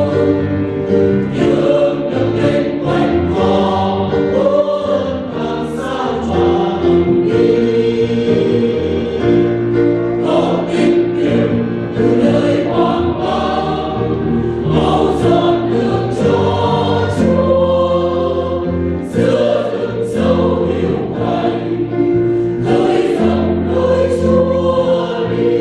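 Church choir singing a Vietnamese hymn, continuous phrases of long held notes in chords.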